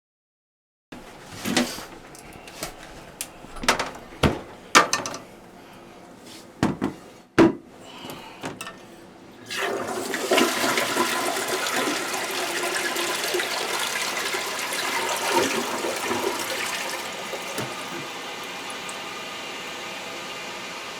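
Some sharp knocks and clatters, then an older ball-float toilet flushes about ten seconds in. Water rushes steadily, then eases after about seventeen seconds as the tank refills.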